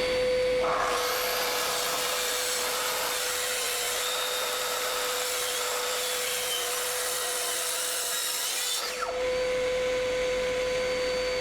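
An electric power saw running and cutting through a dark oak board: the motor is already up to speed, the cut starts under a second in and lasts about eight seconds, then the blade spins on freely without load.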